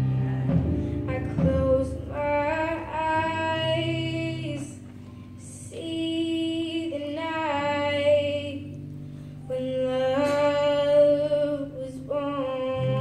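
A girl singing a slow solo into a handheld microphone, holding long notes, over a low instrumental accompaniment.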